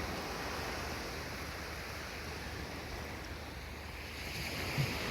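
Steady rush of water at the shore, with a brief soft knock near the end.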